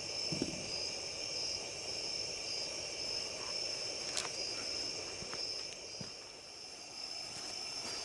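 Night insect chorus: a steady, high-pitched, slightly pulsing trill of crickets, with a single faint tick about four seconds in.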